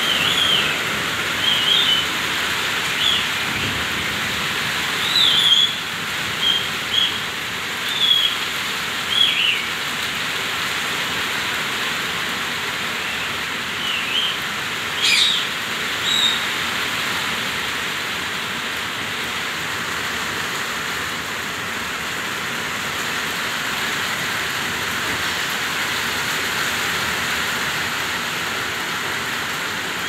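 Indian ringneck parakeet giving about a dozen short, high whistled chirps over the first half, then falling silent, over a steady hiss.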